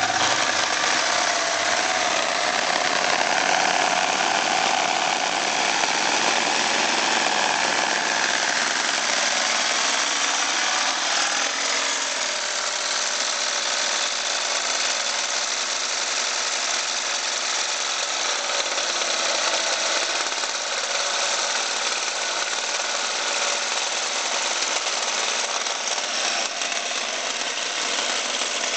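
Low-end corded electric drill driving a hole saw in a tube notcher, cutting a fish-mouth notch in steel tube: a steady motor whine with the cutting noise of the saw in the metal, stopping at the end. The drill is overworked enough to smoke by the end of the cut.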